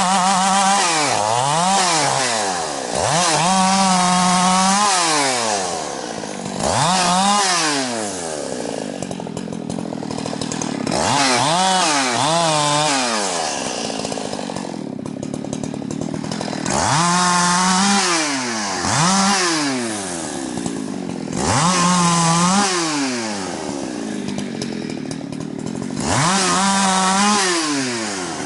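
Husqvarna 365 two-stroke chainsaw revving to full throttle and dropping back to idle, over and over, about seven times, each time held high for a second or so.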